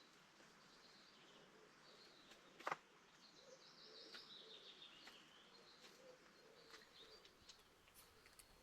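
Near-quiet woodland with faint birdsong: scattered high chirps and a quick falling series of notes. There is one sharp click about three seconds in.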